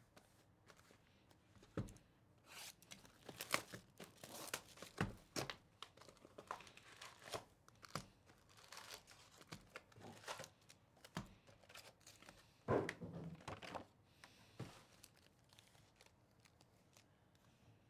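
Cardboard hobby box of 2024 Panini Donruss baseball cards being torn open, then its wrapped card packs rustling and crinkling as they are pulled out and tapped into stacks. Scattered short rustles and taps, the loudest run about 13 seconds in.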